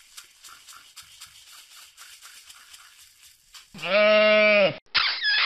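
Faint, quick rhythmic ticking, about four a second, then a loud sheep bleat lasting about a second, followed by a shorter, wavering second bleat.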